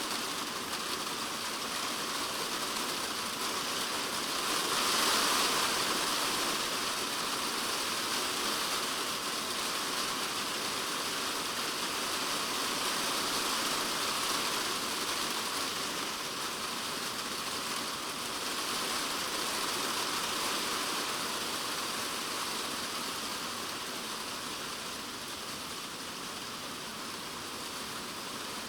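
Heavy typhoon rain falling on a polycarbonate shed roof, heard from inside the shed: a dense, steady patter that swells about five seconds in and eases a little near the end.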